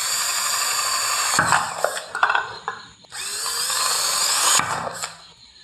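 Cordless drill with a quarter-inch bit boring through two plastic 55-gallon drum bung seals, one after the other. Each run is a motor whine that rises as it spins up. Between the two holes there are some knocks and rattles.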